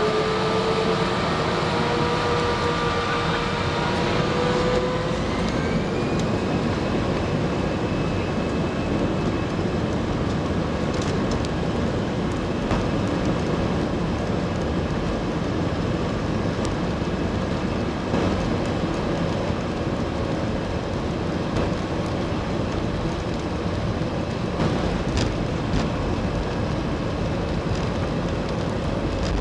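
Airbus A320's jet engines heard from inside the cabin over the wing, spooling up to takeoff thrust with a whine that rises in pitch over the first several seconds. It then settles into a steady, loud rumble of engines and wheels during the takeoff roll.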